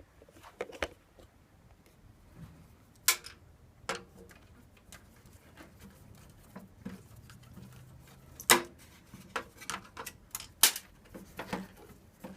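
Scattered clicks and knocks of handling, irregular and sparse, with sharp knocks about three seconds in, about eight and a half seconds in and about ten and a half seconds in.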